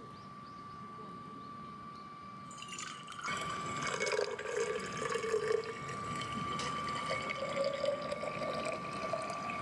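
Water being poured into a pot or kettle, starting about three seconds in, its pitch rising steadily as the vessel fills.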